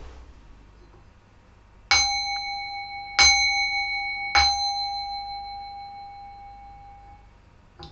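Singing bowl struck three times with a wooden striker, about a second and a quarter apart; each strike rings with a clear, steady tone that fades slowly over a few seconds.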